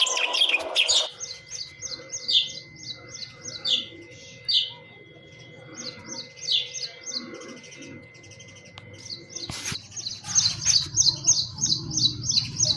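House sparrows chirping: short repeated chirps in uneven runs, coming fast and dense near the end. A sharp click about ten seconds in, after which a low hum sits under the chirps.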